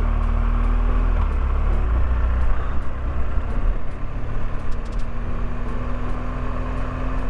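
Motorcycle engine running at low road speed, a steady low drone under a rumble of wind and road noise, its note shifting slightly about a second in and again near two seconds.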